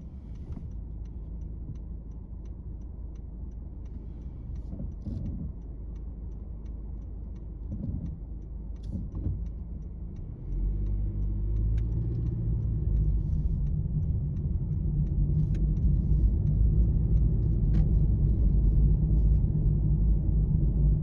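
Low, steady rumble of road traffic that grows louder about halfway through, with a few faint ticks over it.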